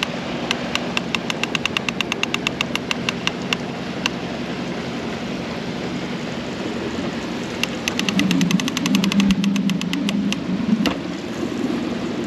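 Fishing reel clicking rapidly, about six clicks a second, in two runs of a few seconds each while it is under load from a hooked large catfish. A steady engine hum runs underneath.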